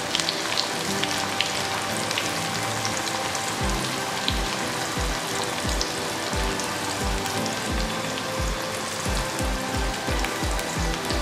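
Young jackfruit pieces deep-frying in hot oil in an iron pot: a steady sizzle with many small crackles. Background music with a steady deep beat comes in about three and a half seconds in.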